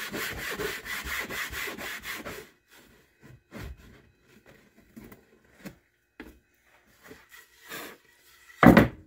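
Fine 400-grit sandpaper rubbed by hand over the edge of a wooden stool seat, in quick back-and-forth strokes for about two and a half seconds. Then a few faint scattered rubs and handling sounds, and one short loud noise near the end.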